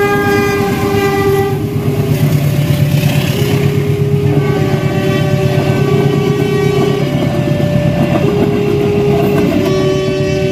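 A diesel-hauled passenger train passing over a level crossing: a steady low engine and rail rumble with wheel clatter from the coaches. Over it run held tones that change pitch every second or two.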